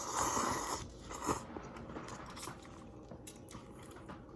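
Person eating cup ramen noodles: a short noisy burst at the start, a sharp click just after a second in, then quiet chewing with faint clicks.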